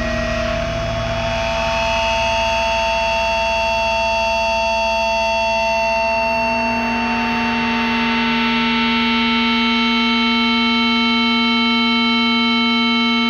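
Sustained, distorted noise drone of grindcore music: many steady held tones over a noisy wash, with no drumming or vocals, ringing on unchanged as the track's closing noise.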